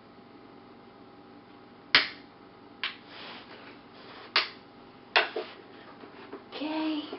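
Plastic hinge cover of a laptop being pried off with a small flat-head screwdriver: its clips snap loose with a sharp click about two seconds in, followed by four more clicks over the next few seconds. A short pitched sound follows near the end.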